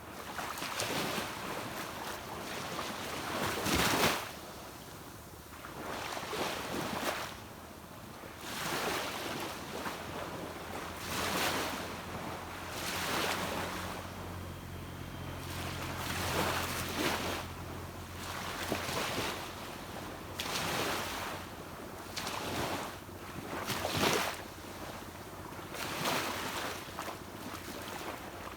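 Small sea waves breaking and washing onto a beach, swelling every one to three seconds, the loudest about four seconds in. A low, steady engine hum from a distant boat runs under the surf through the middle of the stretch.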